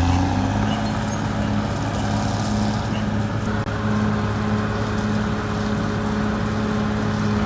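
Caterpillar D6R XL bulldozer's diesel engine running at steady revs.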